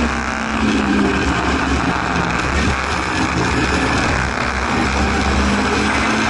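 Singer Chamois race car's rear-mounted four-cylinder engine heard from inside the cabin, its note falling right at the start as the car goes into a bend, then running steadily at lower revs through the corner, over wind and road noise.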